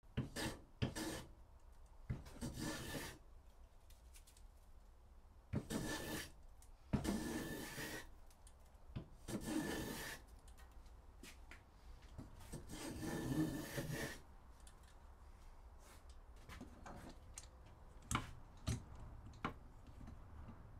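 Hand plane shaving wood held in a bench vise: several long rasping strokes a few seconds apart, with a few sharp knocks near the start and near the end.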